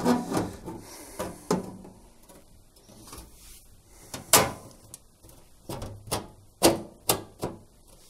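Knocks and clicks of a washing machine's back panel being handled and pressed into place on the cabinet. The loudest knock comes about four seconds in, and a quick run of them follows near the end.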